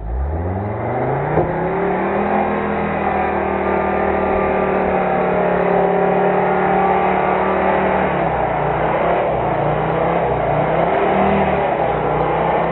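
Off-road 4x4's engine revving up over about two seconds and held at high revs under load in deep mud and water. Near the end the revs dip and rise unevenly.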